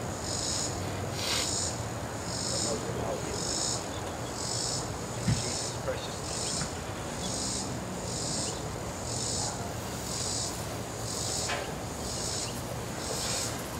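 An insect calling in short, high, buzzy pulses about once a second, steady and regular, over a faint low hum. A single soft knock comes about five seconds in.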